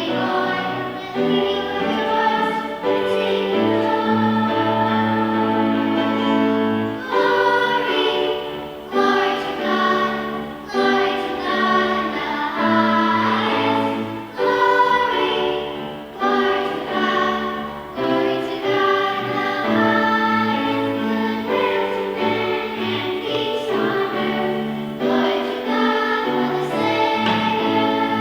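Church choir singing a song from a Christmas musical, with sustained notes and several voices together.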